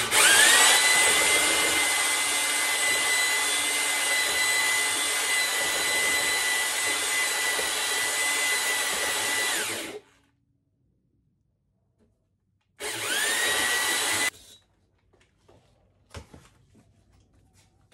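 Corded electric drill spinning a stone cylinder hone inside a Mercury 150 outboard block's cylinder, grinding the bore to remove scratches and out-of-round. The drill's whine climbs quickly as it spins up, runs steadily for about ten seconds and cuts off. A second short run of about a second and a half follows, then a few faint knocks.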